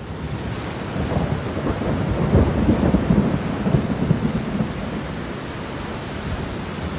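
Thunderstorm sound effect: steady rain hiss with low rolling thunder that swells loudest in the middle.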